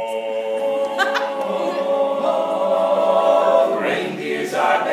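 Male a cappella group singing in close harmony: a held chord of several voices that moves to new chords, fuller and louder about four seconds in.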